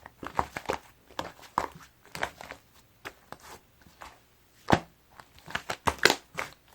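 Sticky clay slime being squeezed and stretched by hand, making irregular wet clicks and pops. The sharpest pops come a little before five seconds in and in a cluster around six seconds.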